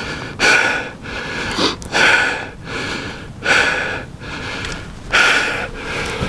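A man breathing hard, with four heavy breaths about a second and a half apart and quieter ones between: the adrenaline rush of a hunter who has just shot a buck.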